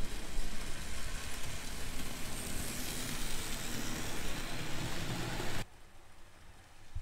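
HO scale model train, a Rivarossi-based steam locomotive pulling freight cars, running along the track close by: a steady rolling clatter of wheels on rail with a low rumble. It cuts off suddenly about five and a half seconds in, leaving a much fainter rumble.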